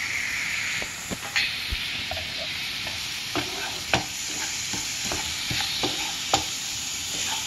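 Minced garlic, sliced chili peppers and soy sauce sizzling steadily in melted butter in a nonstick frying pan as sugar is stirred in, with a wooden spatula scraping and knocking against the pan every second or two.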